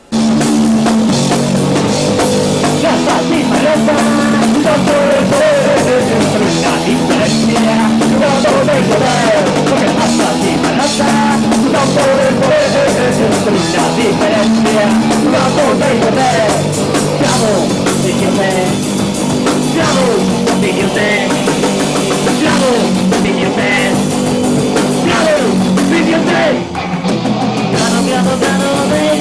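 Punk rock band playing live, loud, with drum kit and electric guitar, kicking in suddenly at the start.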